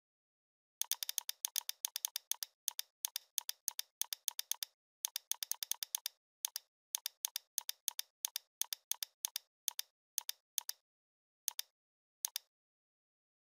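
Computer mouse clicks: a long, irregular run of sharp, bright single clicks, often several a second with short pauses between groups. There is silence between the clicks, and they stop about a second before the end.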